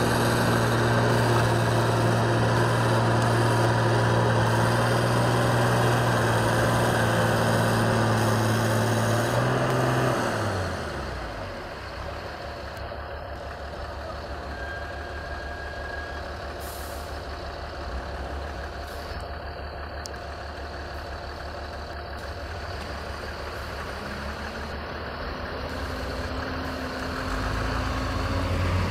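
Heavy diesel engine of a loaded logging truck running at steady high revs, then easing off about ten seconds in with a falling pitch. It rumbles more quietly for a while, and the revs rise again near the end as it pulls on.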